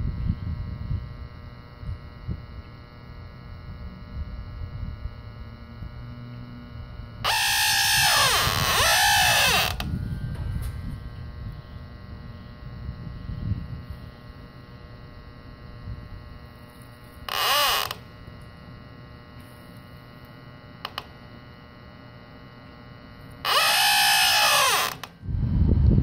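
Bubble leak-detector solution sprayed onto a corroded copper refrigerant line to find a refrigerant leak, hissing in three bursts: a long one of about two and a half seconds roughly a third of the way in, a short one past the middle, and another near the end. A steady hum runs underneath.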